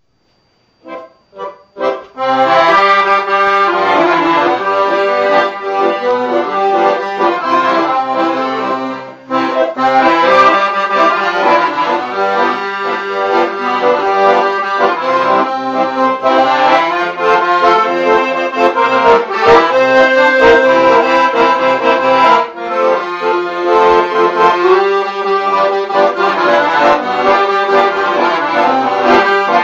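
Accordion playing a traditional tune. It begins with a few short notes after a near-silent first second, then plays fully from about two seconds in, with brief breaks about nine and twenty-two seconds in.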